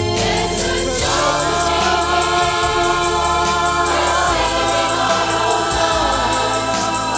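A mixed choir of men and women singing held notes in harmony over instrumental accompaniment with a steady bass line; a new phrase starts about four seconds in.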